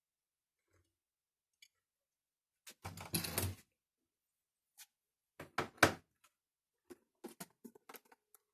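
Handling noises from someone working with the speaker setup: a short scraping rustle about three seconds in, a few sharp knocks about two seconds later, then a run of small clicks near the end.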